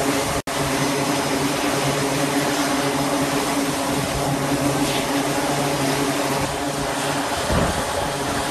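Steady mechanical drone with several steady hum tones, mixed with wind noise. It cuts out for an instant about half a second in.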